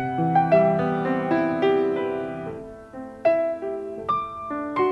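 Slow piano music: notes are struck and left to ring, fading to a lull about three seconds in before new notes start.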